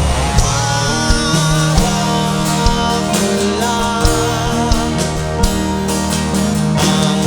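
Live rock band playing an instrumental passage: guitar and bass over a drum kit, with drum hits landing at a steady beat. The mix is taken straight from the mixing desk.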